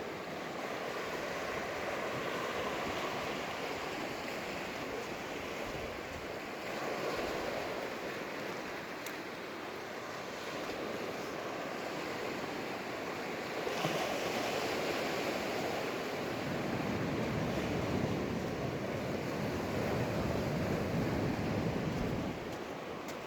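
Sea surf washing onto the beach: a steady rushing of breaking waves that swells a little past the middle and again towards the end, then eases off.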